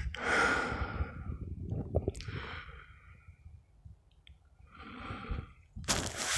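A person breathing out heavily three times, slow breaths about a second long with pauses between. A louder, rougher noise begins near the end.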